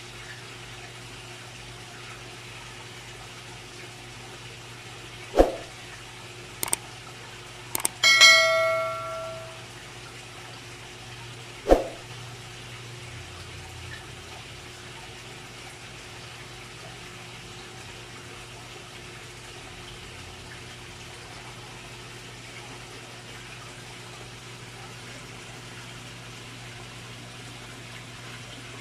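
Filtered water pouring from a filter outlet over a ledge into a fish pond, a steady splashing. A few sharp knocks break in, and about eight seconds in a bell-like metallic ring fades out over a second or so.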